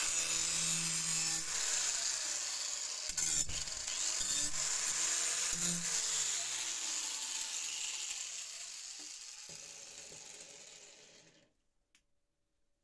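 Angle grinder grinding the bare steel of a spade blade: a steady, high-pitched hiss of the disc on metal with a knock about three seconds in. It fades out over the last few seconds into silence.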